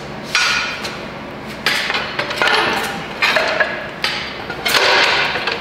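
A series of metal knocks, clinks and scrapes, about six in all, as a heavy Subaru STI transmission case is shifted and knocked against the saddle of a transmission jack.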